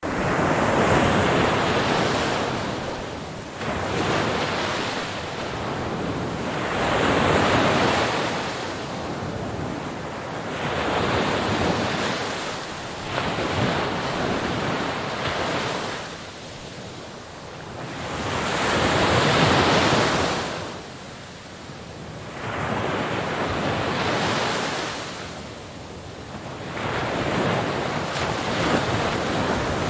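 Sea waves breaking and washing in over and over, each surge of rushing water swelling up and falling away every few seconds.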